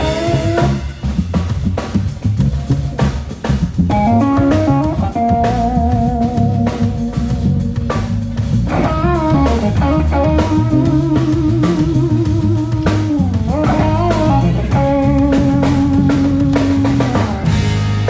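A band playing: electric guitar over drum kit and bass, with held notes that waver in pitch.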